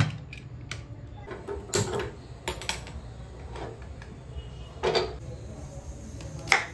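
A handful of short knocks and clicks of dishes and eating utensils being handled, scattered a second or two apart.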